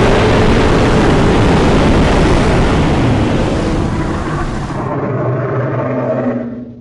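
Custom-made Galactus roar sound effect: one long, loud, growling roar that fades away near the end.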